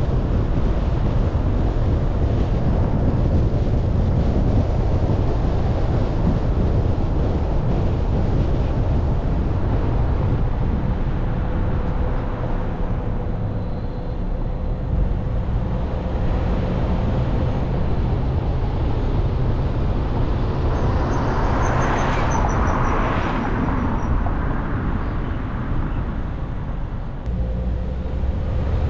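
Car driving on city streets: steady low rumble of road and wind noise. A louder rushing swell comes and goes about three-quarters of the way through.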